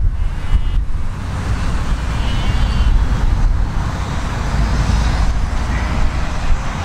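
Wind buffeting the microphone with a heavy low rumble, over the faint sound of a steam train drawing closer in the distance.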